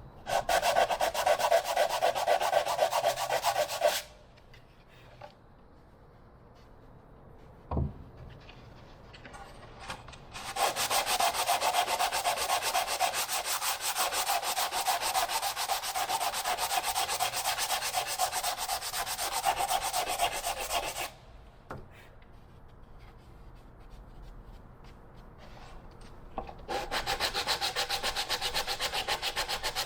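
Hand sanding wood with a sanding block: rapid back-and-forth rasping strokes in three bouts, the longest about ten seconds in the middle, squaring off a part's edge to fit. A single short knock falls in the first pause.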